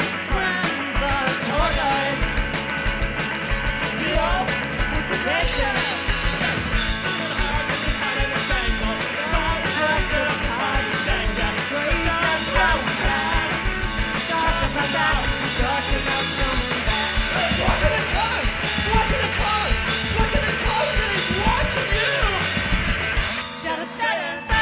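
Live indie rock band playing a fast, loud song, with shouted vocals over guitars and drums; the music dips briefly near the end.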